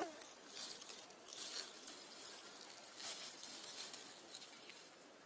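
Faint rustling of monkey fur and dry leaves as a macaque mother shifts while holding her newborn, with two brief scuffs about a second and a half and three seconds in. A short squeak falls in pitch at the very start.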